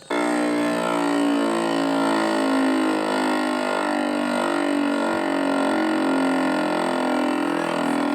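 A siren sounding loudly, a low steady tone of several notes at once that wavers slightly, starting abruptly.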